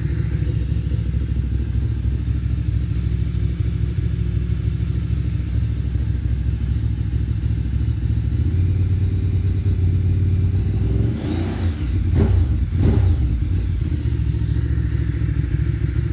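Ducati Streetfighter 848's L-twin engine idling steadily after a cold start, with two quick throttle blips, rising and falling, about two-thirds of the way through.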